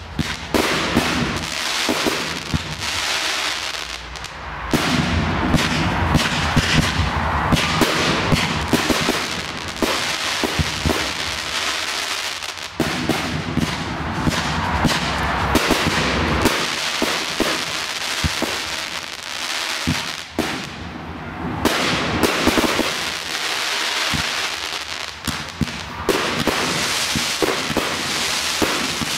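Fireworks display: dense, continuous bangs and crackling from aerial shells and cakes bursting overhead, with louder flurries about five and thirteen seconds in.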